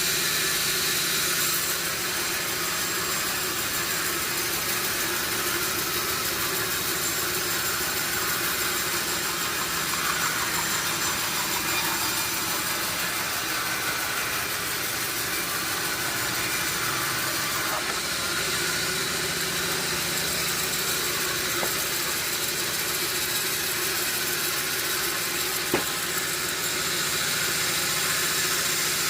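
Sawmill machinery running steadily: a continuous mechanical noise with a steady hum, and one sharp click late on.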